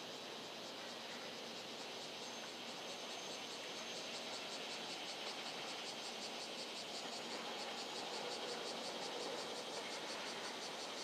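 Insects chirping in a fast, even, high-pitched pulsing that grows a little louder about four seconds in, over a steady background hiss.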